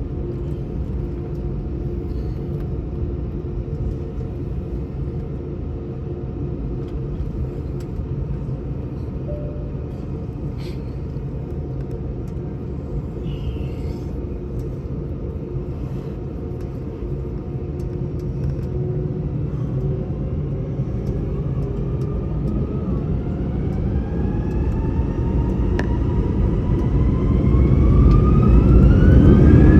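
Airbus A320's jet engines running with a steady rumble and faint whine, then about three-quarters of the way through a rising whine as they spool up to takeoff thrust, the rumble growing louder.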